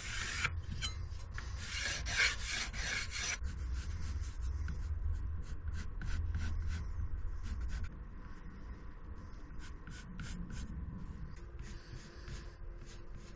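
Irregular rubbing and scraping strokes on a wooden board, worked by hand, over a low hum that stops about eight seconds in.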